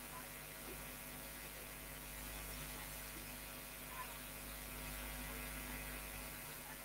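Steady electrical hum with a low hiss, and a faint tick about four seconds in.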